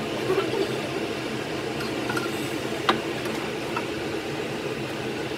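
A metal spatula clinks lightly against a pan and plate a few times, the clearest about three seconds in, as stir-fried food is scooped onto the plate. Under it runs a steady mechanical hum.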